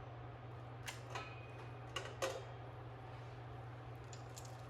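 A few light clicks and scrapes of kitchen tools being handled, four of them between about one and two and a half seconds in, over a steady low hum.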